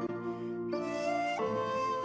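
Instrumental background music led by a flute playing slow, held notes that change pitch a couple of times.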